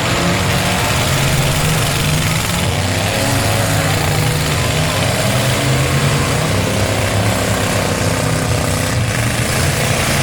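Demolition derby cars' engines running and revving together in a steady, loud din.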